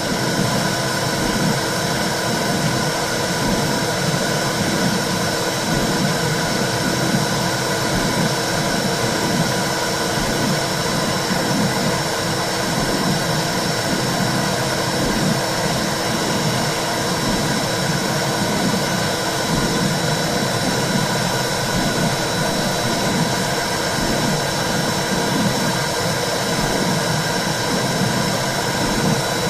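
Womb-sound recording for soothing a baby: a steady whooshing noise with a low, flickering rumble underneath.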